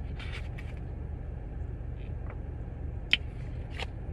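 Steady low hum with a few short, sharp clicks, the loudest about three seconds in.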